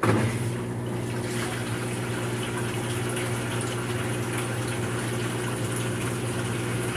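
Maytag washer's drain pump running steadily, a motor hum over rushing water as it pumps the tub out. This is the pump that had failed to drain after the wash step, now working.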